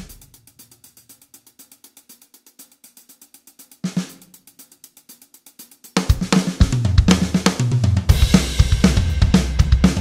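Background electronic music. For the first six seconds only quiet, fast, even hi-hat ticks play, with one louder hit about four seconds in. Then a full drum kit and heavy bass line come in together.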